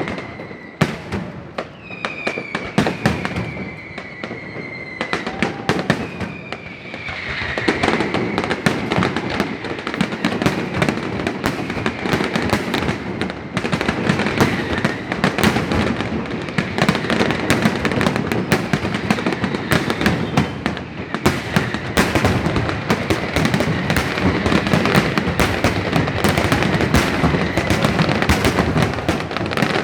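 Fireworks display: rapid bangs and crackles with a few falling whistles during the first several seconds. About seven seconds in it builds into a dense, continuous barrage of crackling and explosions.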